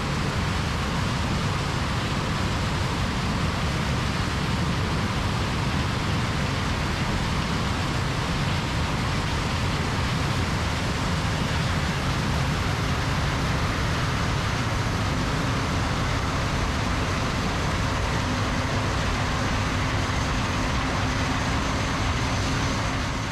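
Heavy farm machinery running steadily while harvesting corn: the John Deere S690 combine and the 9510R tractor with its grain cart. It fades out at the end.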